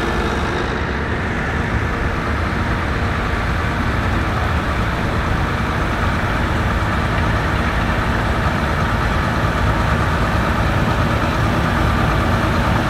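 Antique Allis-Chalmers tractor engines running at low speed as the tractors drive past in a slow parade line. The sound is a steady low rumble that grows a little louder near the end.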